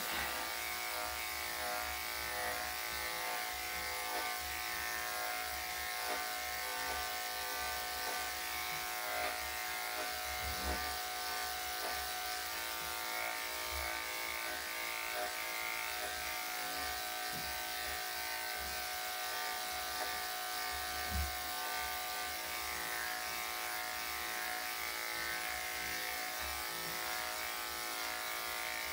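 Electric dog grooming clippers with a #5 blade running steadily with a constant buzzing hum, clipping a Yorkshire Terrier's coat.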